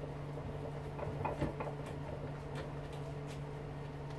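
A few faint, irregular clicks and scrapes of a knife and wire being handled as insulation is stripped off a copper lead by hand, over a steady low hum.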